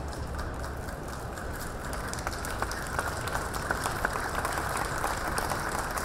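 Crowd applauding, the clapping growing denser about two seconds in, over the low hum of a busy exhibition hall.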